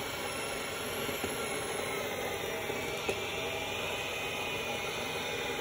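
A drill driving a worm-gear hand winch, running steadily with a faint whine as it reels in the rope.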